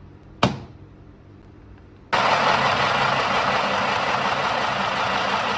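Mini sewing machine's small electric motor running, the needle stitching steadily for about four seconds, starting about two seconds in. A single sharp click about half a second in.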